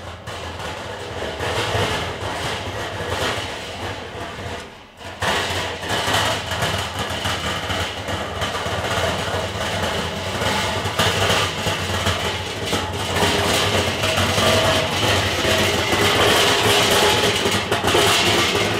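Converted Weber kettle grill on a wheeled metal stand rattling and clattering as it is rolled over paving stones, growing louder about five seconds in.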